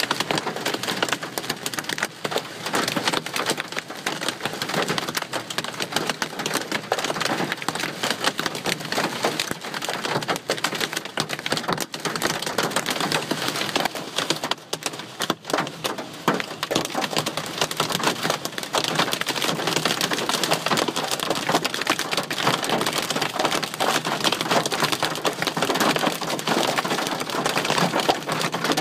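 Heavy rain and golf-ball-sized hailstones hammering on a car's roof and windscreen, heard from inside the cabin as a dense, unbroken clatter of hits over the hiss of the rain.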